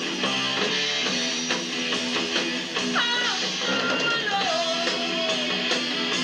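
Live rock trio of electric guitar, bass guitar and drums playing steadily, with a high note bent sharply upward about three seconds in and sliding notes after it.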